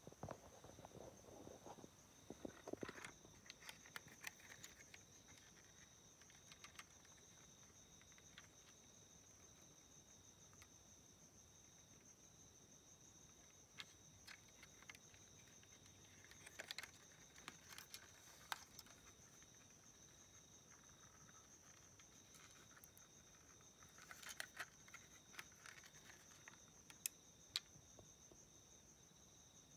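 Near silence with a steady high-pitched tone, broken by scattered faint clicks and rustles of a plastic LEGO wagon being handled and turned over in the hand, a few sharper clicks near the end.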